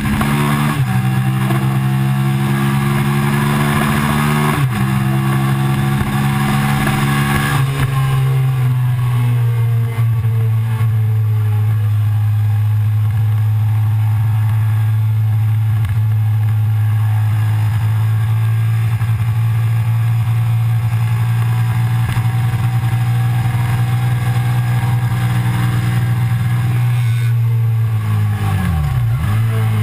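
Suzuki SV650's V-twin engine running hard, heard from the bike itself with wind noise. It changes up a few times in the first several seconds, holds one steady note for a long stretch, then drops sharply and picks up again near the end as it changes down.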